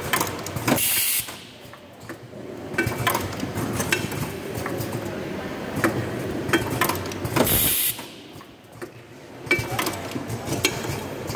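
Pneumatic nipple assembly machine running, with the quick clicking and clacking of its air cylinders and valves. Twice, about a second in and again about seven seconds in, there is a short loud blast of compressed-air hiss.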